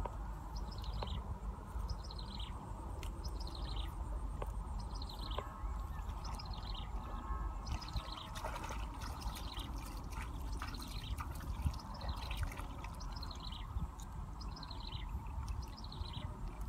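A bird calling over and over outdoors: a short, high call falling in pitch, repeated about every second and a half, over a steady low rumble.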